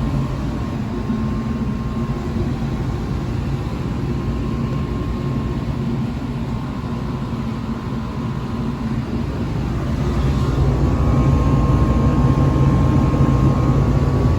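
A National Comfort Products 1000-series 1.5-ton through-the-wall central air conditioner running in cooling mode: a steady compressor and fan hum with a faint high whine over it. It grows louder about ten seconds in. The owner believes the compressor is a scroll.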